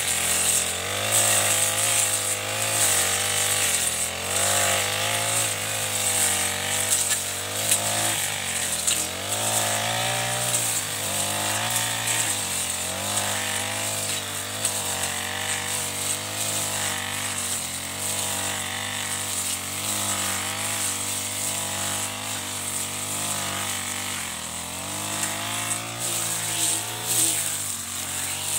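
Chinese-made Honda-copy four-stroke backpack brush cutter running under load while cutting grass, its engine pitch rising and falling over and over as the cutting head swings through the grass.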